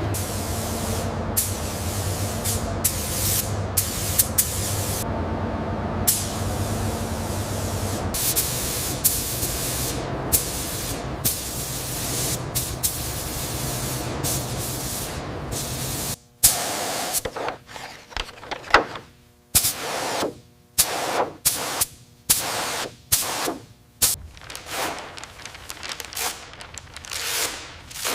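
Steady hissing spray over a low hum, then, about halfway through, a string of short spray bursts, each cut off by a brief silence.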